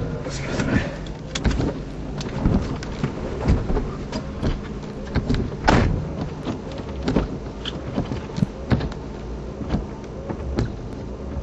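Inside a moving car's cabin: a steady low rumble of engine and road noise, with frequent irregular knocks and rattles, the loudest about halfway through.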